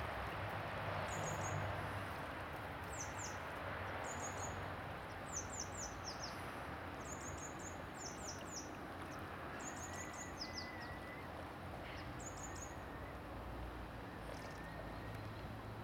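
High, thin chirps of a small songbird, in quick runs of two to four notes, repeating every second or so over a steady outdoor rushing background that eases slightly after the first few seconds.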